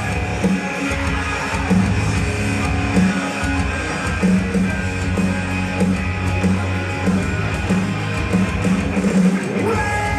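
Guitar-driven rock music with a steady beat.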